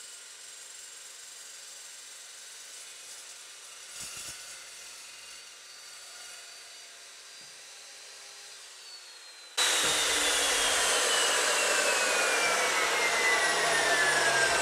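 Evolution S355CPLS 14-inch dry-cut metal chop saw with a carbide-tipped blade, after a cut in steel tube. It is faint and steady at first, with a single knock about four seconds in. About ten seconds in, a loud whirring sets in, with a whine falling steadily in pitch as the blade spins down.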